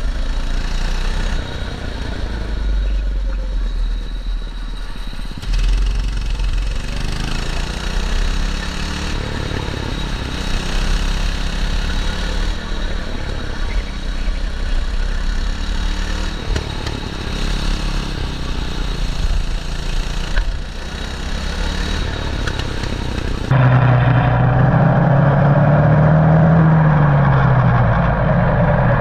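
Race kart engine running while the kart is driven at speed. About 23 seconds in, the sound cuts to a microphone mounted low on the kart, where the engine note is louder and clearer, rising and falling in pitch with the throttle.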